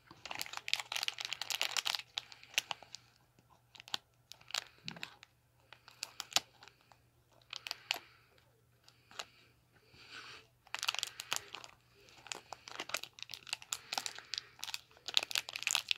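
Plastic candy wrapper on an individually wrapped gummy Krabby Patty crinkling and tearing as fingers pull it open, in bursts of crackle with short pauses. The crackling is densest at the start and again over the last five seconds.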